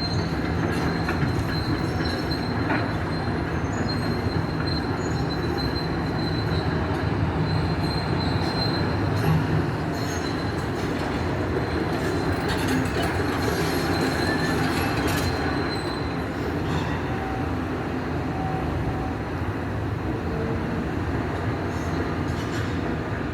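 Demolition excavator working: a continuous low engine drone with a thin high-pitched squeal over it, and scattered clanks and knocks of metal and rubble. The squeal is strongest in the first half and fades later on.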